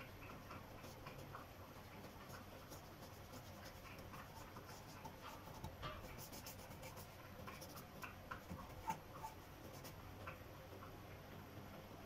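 Faint dabs and scratches of an oil paintbrush on canvas: a scatter of short, soft ticks, busiest in the middle.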